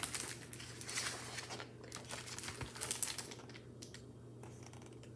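Paper rustling as a picture book's page is turned and pressed open, busiest for the first three and a half seconds and then dying down to a few faint rustles.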